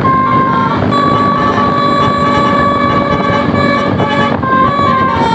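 Tour bus's 'telolet basuri' musical horn playing a tune: a long held note, then quicker changing notes near the end.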